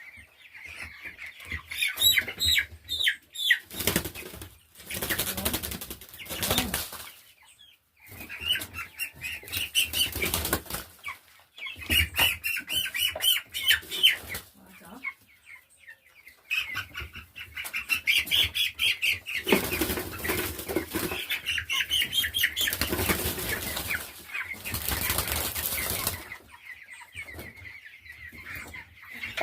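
Three-week-old chicks flapping their wings in several loud bouts of a few seconds each, with shrill peeping throughout, as they are caught and moved.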